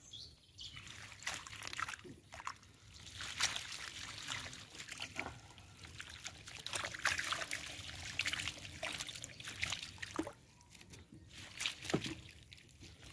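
Water trickling and splashing off a long hoop-framed ring net as it is hauled by hand out of the water over the side of a wooden boat: an irregular patter of drips and splashes, easing off briefly near the end before one more sharp splash.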